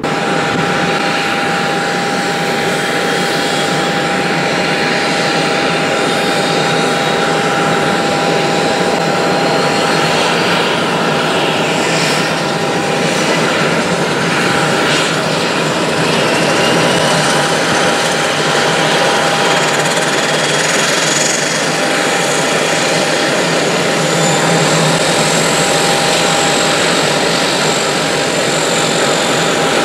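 Embraer 120 Brasilia twin turboprop taxiing, its Pratt & Whitney Canada PW118-series engines running at low power: a steady, loud propeller drone with a steady mid tone and a high turbine whine that drifts slowly in pitch.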